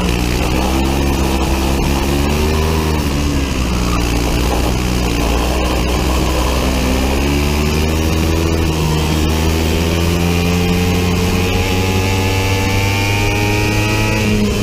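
Biland SA250 four-stroke single-cylinder kart engine under racing load, heard onboard. The revs rise and fall several times through the corners, then climb steadily over the last few seconds to high revs on the straight.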